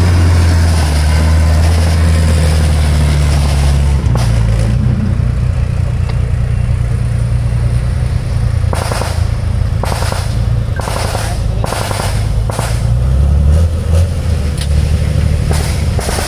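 Diesel engine of a tracked BMP-2 infantry fighting vehicle running with a steady low drone that changes abruptly about four seconds in. From about nine seconds in, a series of short, loud, rattling bursts like gunfire cut in over it.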